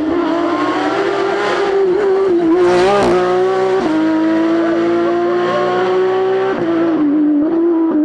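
Porsche 992 Rally GT engine running hard at high revs, its pitch climbing slowly and then stepping down twice as the driver shifts gear, with a short burst of tyre and gravel noise about three seconds in.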